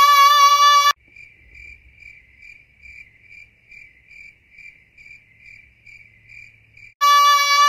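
A woman's voice holding one high sung note for about a second, then cut off abruptly. Crickets then chirp in a steady rhythm, about two chirps a second. Near the end the same held high note cuts back in.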